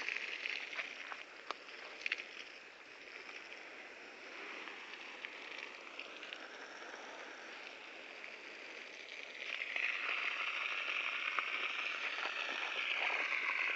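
Steady rush of splashing water, as from an irrigation pump's outlet, louder again about ten seconds in, with a few faint clicks near the start.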